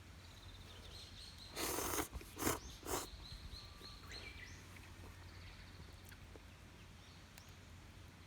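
Birds calling outdoors in high, thin repeated notes, some gliding downward. About a second and a half in come three short, harsh noisy sounds, the first the longest and the loudest thing heard.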